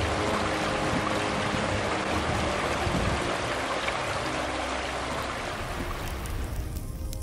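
Steady rushing of a shallow rocky stream, fading out about six seconds in.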